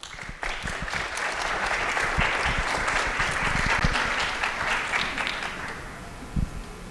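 Audience applauding, swelling over the first couple of seconds and dying away about six seconds in.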